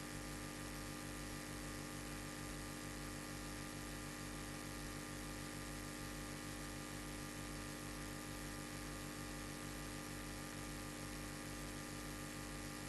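Steady electrical hum with a layer of hiss, holding unchanged: the background noise of the recording chain in a pause between speech.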